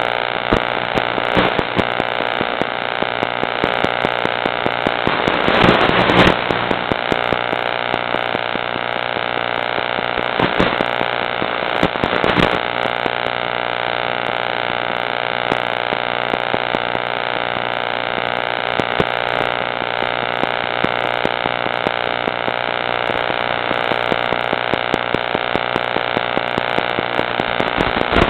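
Blade Nano QX micro quadcopter's small electric motors whining steadily with a hiss of noise, with two brief louder surges of noise about six and twelve seconds in.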